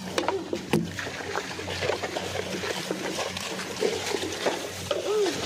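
Wet mud splashing and squelching, with cut rice straw rustling and crackling as feet and a carabao cart move through a harvested paddy.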